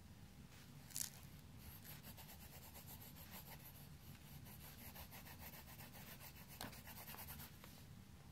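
A child scribbling on lined paper: faint, rapid scratchy strokes of the drawing tool across the sheets, with a sharp tap about a second in, the loudest moment.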